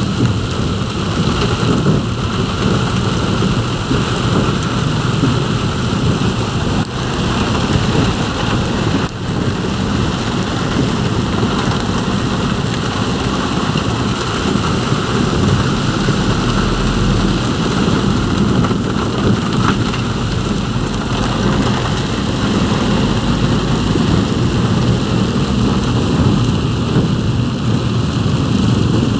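Heavy rain beating on a vehicle's roof and windshield, heard from inside the moving vehicle: a steady, dense rush with a deep rumble underneath.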